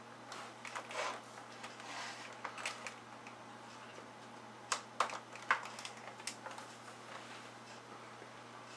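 A few sharp small clicks and light handling noises, the loudest cluster about five seconds in, over a steady low electrical hum.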